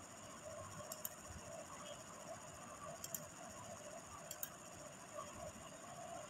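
Quiet room with three faint sharp double clicks, about one, three and four and a half seconds in, typical of clicks made while working a laptop. Under them runs a faint, evenly pulsing background sound.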